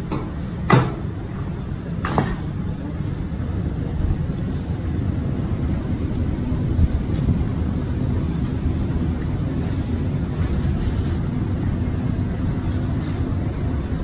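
A knife cutting through a lettuce-wrapped burger, with two sharp knocks about one and two seconds in as the blade reaches the wooden cutting board, over a steady low rumble.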